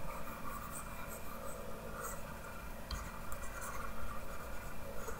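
Faint scratching and rubbing of a stylus stroking across a drawing tablet in short strokes, with a light tap about three seconds in.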